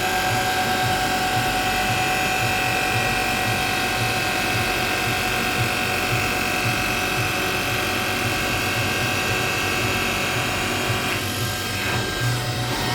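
Three-axis CNC machining center (UDM-2216) milling steel: a steady machine whine over a low running hum, the higher whine stopping about eleven seconds in.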